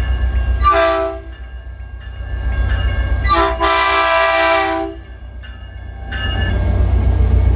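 Caltrain diesel locomotive's horn sounding a short blast about a second in and a longer blast from about three to five seconds in, over the low steady rumble of the locomotive. The rumble grows louder near the end as the locomotive passes close by.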